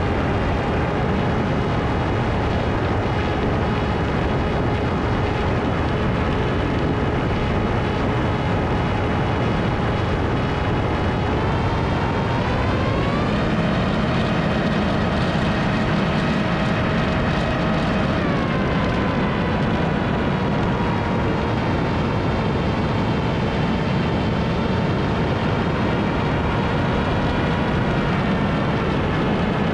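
Ritewing Hardcore 38 flying wing in flight: an electric motor and propeller whine over a steady rush of wind. The whine rises in pitch about twelve seconds in, holds, and falls back about six seconds later as the throttle is opened and eased off.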